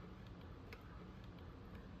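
Faint, scattered light clicks over a low steady hum.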